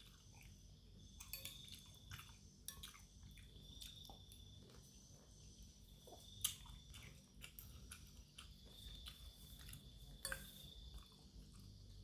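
Faint chewing and mouth clicks of a person eating chicken noodles and meatballs, with scattered soft clicks and a sharper one about six and a half seconds in.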